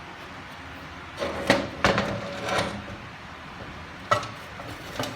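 Metal clanks and clatter of tools and transmission parts being handled: a cluster of knocks with brief metallic ringing about a second in, then two more sharp knocks near the end.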